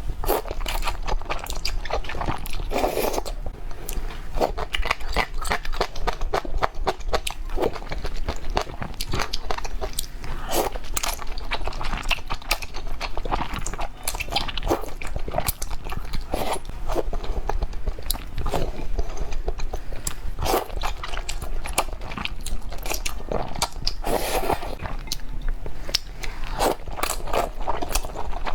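Close-up eating sounds: a person biting and chewing food with many irregular crunches and crackles.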